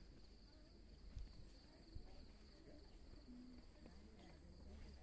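Near silence with a faint, steady, high-pitched chirring of insects in the grassland.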